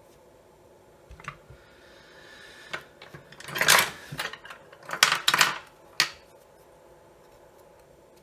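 Small hard objects handled on a workbench: a scrape, then a quick run of sharp clicks and clatters, with a last click about six seconds in.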